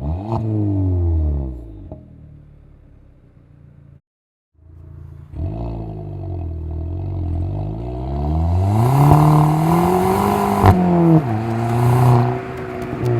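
VW Polo 1.2 TSI turbocharged four-cylinder petrol engine through a resonator-deleted exhaust with a GTI muffler: a quick rev blip that dies away, a brief dropout about four seconds in, then the engine pulling up through the revs. Near the end there is a sharp crack from the exhaust as the revs fall briefly, then they climb again.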